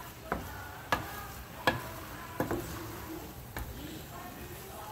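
Wooden spoon stirring ground venison and diced potatoes in a pot, knocking against the pot about five times, over a steady sizzle of the meat browning on the gas burner.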